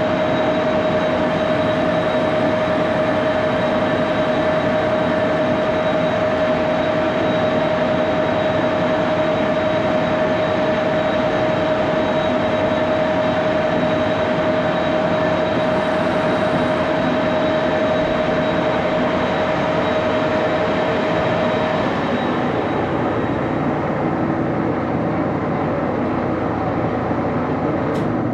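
Axelson engine lathe turning a steel bar held in a four-jaw chuck at about 628 RPM under hand feed, cutting without chatter even though the work stands over a foot out from the spindle bearings. A steady machining noise carries a sustained tone that stops about 22 seconds in, while the lathe keeps running.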